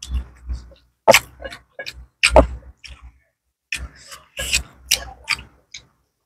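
A person eating with open-mouthed chewing and lip-smacking: an irregular string of sharp smacks with a short pause in the middle.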